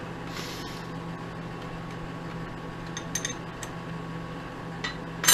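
Mini lathe's electric motor humming steadily while metal tooling is handled: a few light metal clinks about three seconds in, and a short, sharper clatter at the very end.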